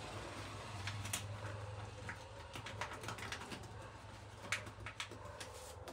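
A few short clicks and taps of a banknote being handled and pushed into the bill slot of a note-to-coin change dispenser, over a steady low hum.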